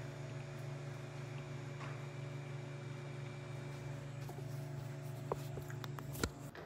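A steady low hum, with a few light clicks near the end as a metal spoon knocks against a plastic snack container.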